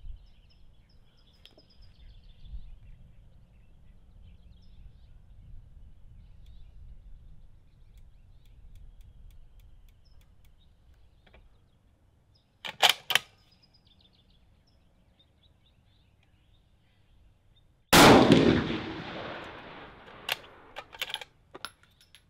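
A single loud shot from a 6.5 Creedmoor bolt-action rifle with a muzzle brake, about three-quarters of the way in, echoing away over about two seconds. A few seconds before it comes a quick cluster of metallic clicks, and after it several sharp clicks as the bolt is worked. Faint bird calls sound at the start.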